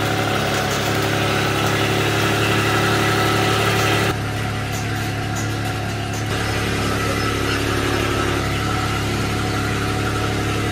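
Engine of a loader fitted with pallet forks, running steadily at an even speed. Its sound shifts abruptly and slightly quieter about four seconds in, then again about six seconds in.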